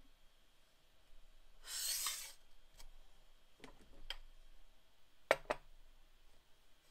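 Glass jar of coarse azurite pigment handled on a textured mat: a brief scraping rustle about two seconds in, then a few light knocks and clinks, the sharpest a quick double clink a little past five seconds.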